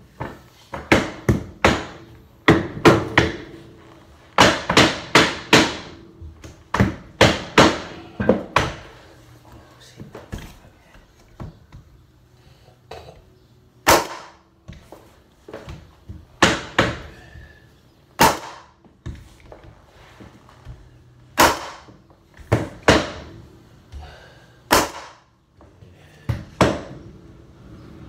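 Pneumatic hardwood flooring nailer struck with a mallet, firing fasteners into the floorboards: sharp bangs in quick clusters through the first nine seconds or so, then single shots every second or two.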